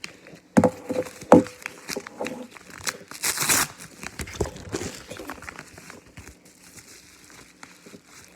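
Packaging being handled and torn open: two sharp knocks about half a second and a second and a half in, then crinkling and tearing that peaks around three and a half seconds and trails off into lighter rustling.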